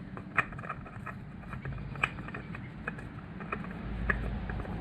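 Light, irregular clicks and scrapes of a spin-on oil filter being turned by hand onto its threaded mount on a Honda Rebel 500 engine. A low rumble comes up near the end.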